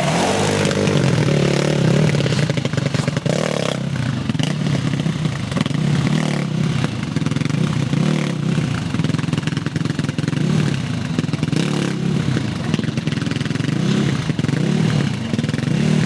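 450cc single-cylinder quad bike engine revving hard and dropping back over and over, about every one to two seconds, as the bike is thrown through stunts.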